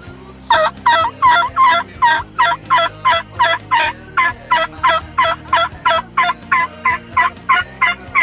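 Wild turkey yelping: a long, even run of about two dozen short, loud yelps, about three a second, starting about half a second in.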